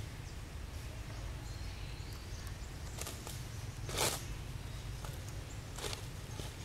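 Outdoor ambience: a steady low rumble with a few brief rustles, the loudest about four seconds in.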